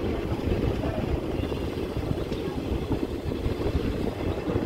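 Passenger train running along the track, a steady rumble heard from inside the carriage at the window.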